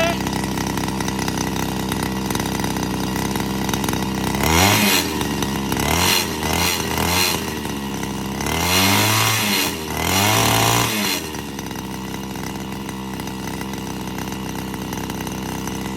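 Farm tractor engine idling, then revved several times in the middle, its pitch sweeping up and falling back each time, before it settles to a steady idle again.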